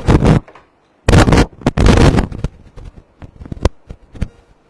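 Loud rustling and crackling bursts from a clip-on lavalier microphone being handled and rubbed as the phone is turned around, followed by scattered sharp clicks and pops. The crackle fits the microphone fault the owner cannot explain even after buying a new cable.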